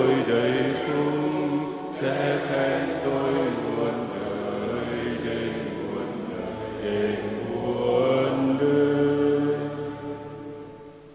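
Catholic liturgical chant sung slowly in Vietnamese, with long held notes that step from pitch to pitch, fading out near the end.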